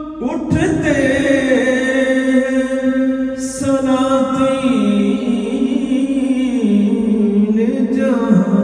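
A man singing an Urdu naat unaccompanied, with no instruments. He holds long, drawn-out notes, and the melody steps down in pitch several times through the passage.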